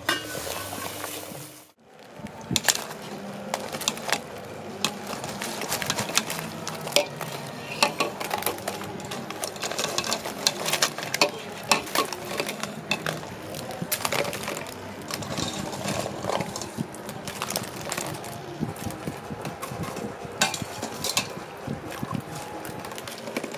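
A steady hiss for about the first two seconds. Then many small clicks and knocks of quail eggs against each other and the stainless steel pot, with water sloshing and dripping as the eggs are lifted out with a wire-mesh strainer.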